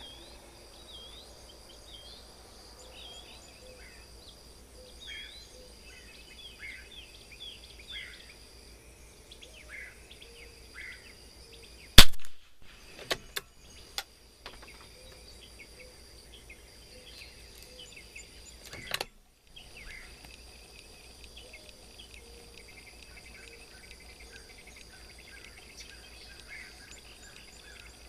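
A single shot from an Anschutz 54 rimfire target rifle about halfway through, followed within two seconds by a few light clicks of the bolt being worked, and another sharper click some seven seconds later. Birds chirp throughout over a steady high insect drone.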